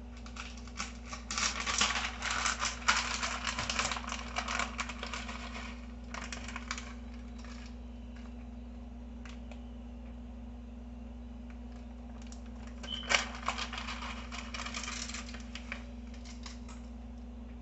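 Shredded cheddar cheese sprinkled by hand over a pizza resting on crinkled aluminum foil: quick dry ticking and crackling of shreds and foil in two spells. The first lasts about six seconds; the second starts with a sharp snap about thirteen seconds in.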